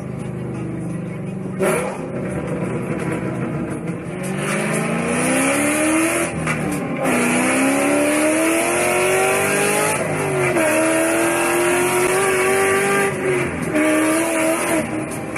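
Ford Mustang engine running steadily, then revving up hard from about four seconds in, its pitch climbing, dropping back at about seven and ten seconds, then held high, with a loud hiss over it. A sharp crack sounds near the start.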